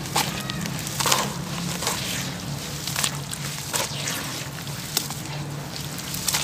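Hands crumbling chunks of sand-cement in water and squeezing the wet mix: irregular gritty crunches and crackles with wet squishing. A steady low hum runs underneath.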